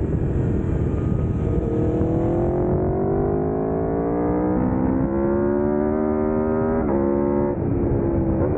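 Aprilia Tuono's V4 engine under hard acceleration, its note climbing steadily in pitch, then dropping sharply about seven seconds in as it shifts up, over a steady rush of wind noise.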